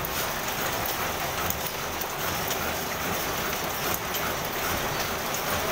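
Grass mat weaving machine running: a steady mechanical clatter with faint repeated knocks.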